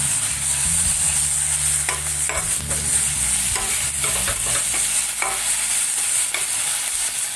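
Thick spice paste sizzling in oil in a stainless steel frying pan, stirred and scraped with a metal spatula in irregular strokes. The oil has begun to separate from the masala, the sign that it is fully fried.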